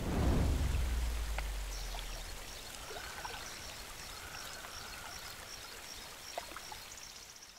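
A deep boom at the start that fades away over about two seconds, then rushing creek water with birds chirping high and repeatedly over it.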